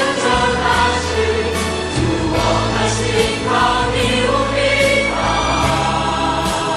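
Choral music: a choir singing long held chords that change every two or three seconds.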